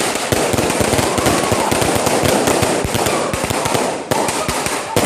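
Fireworks going off in a dense, rapid string of crackling pops, with a brief dip about four seconds in before they carry on.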